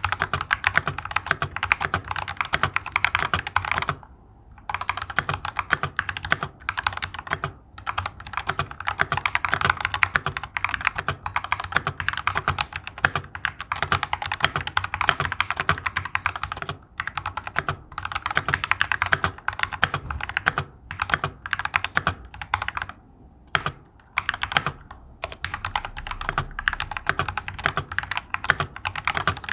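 Typing test on a mechanical keyboard fitted with Akko translucent ASA plastic keycaps: a fast, continuous run of key clacks, with a couple of brief pauses.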